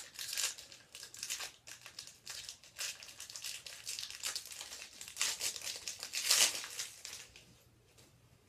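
A trading card pack's wrapper being torn open and crinkled, in irregular rustling bursts that are loudest about five and six seconds in and die away about a second before the end.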